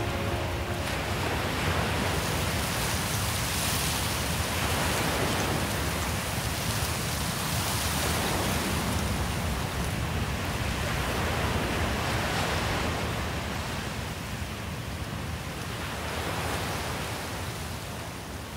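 Sea waves and wind: a steady rushing that swells and eases every few seconds, growing a little softer near the end.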